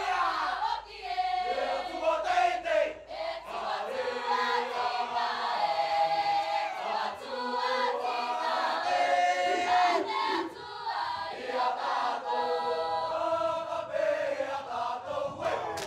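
Mixed choir of men and women singing a Cook Islands Māori group song together.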